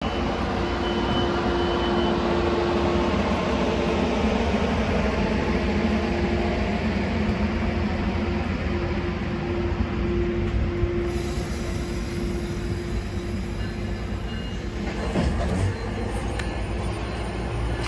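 Metrolink commuter train's bilevel passenger cars rolling past as the train pulls out: a steady rumble of wheels on rail with a humming tone that comes and goes, and a few knocks near the end.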